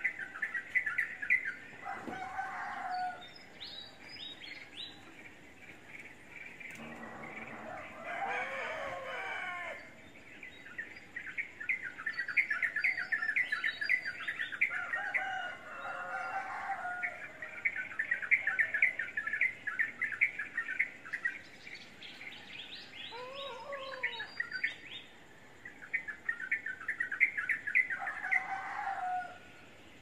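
Peach-faced lovebirds chattering: long runs of fast, high twittering chirps, broken every few seconds by short, lower, harsh squawks.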